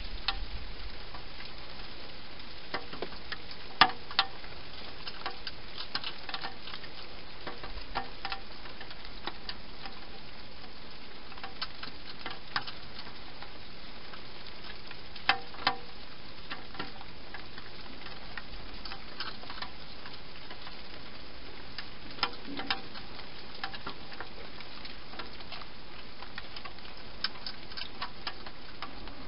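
A hedgehog eating dry food inside a clear plastic feeding box: irregular crunching clicks and taps over a steady hiss, with a few louder knocks, the sharpest about four seconds in.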